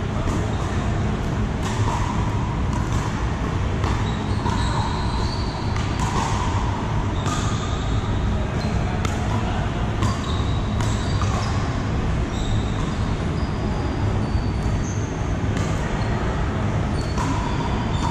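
Pickleball paddles hitting plastic balls on several courts at once: many irregular sharp hits, echoing in a large hall, over steady background noise.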